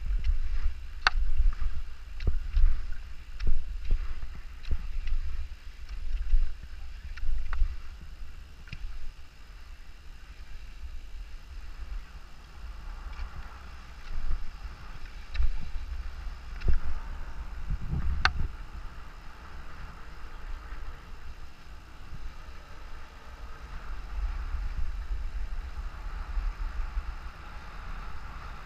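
Wind rumbling on a helmet camera's microphone as a skier runs downhill, with the hiss of skis sliding over snow and scattered sharp clicks, most frequent in the first third and one louder click about two-thirds in.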